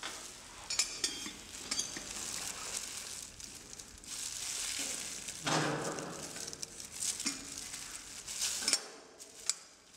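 Stainless-steel cups and lids clicking and scraping against a metal holder as they are handled, with the crinkle of thin plastic gloves. A few sharp metallic clicks stand out, about a second in, near two seconds and near the end, with a longer stretch of rustling and scraping in the middle.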